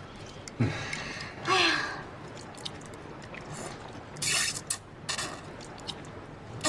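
Thick noodles being slurped off chopsticks: two short hissing sucks about four and five seconds in, after a brief breathy sound near the start.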